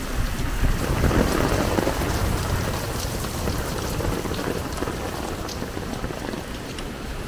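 Heavy rain pouring steadily, with scattered sharp drop ticks. A low rumble of thunder swells about a second in and slowly fades.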